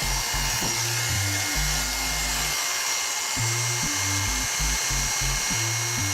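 Background music with a stepping bass line. Under it runs the steady high whine of an Andis electric hair clipper running with a sharpened blade fitted.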